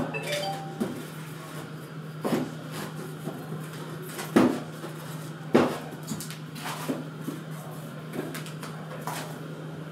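White foam packing blocks being pulled off a blue acrylic printer cover: foam rubbing and squeaking, with half a dozen sharp knocks and scrapes as the plastic cover is handled.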